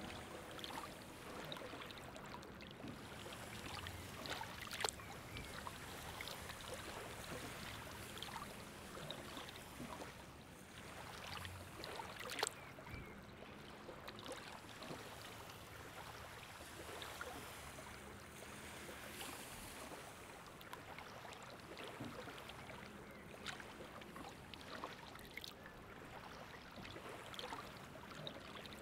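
Faint lapping of river water, with scattered small ticks and splashes, two sharper ticks standing out.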